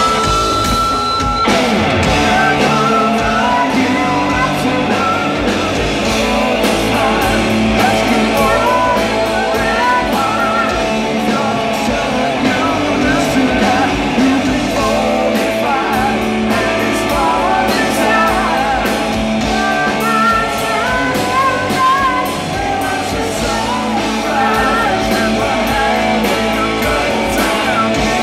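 Live rock band playing loud, with electric guitar and drums under a male lead vocal, heard from the audience.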